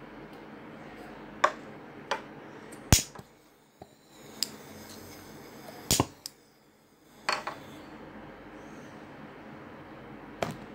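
Glass test tube being handled and knocking against a hard tabletop, about seven sharp clinks and knocks with the loudest about three seconds in, over a steady hiss.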